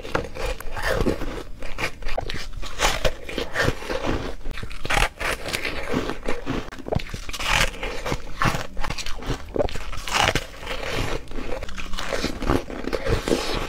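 Bites into and chews a yellow ring of frozen foam ice: dense, crisp crunching and crackling.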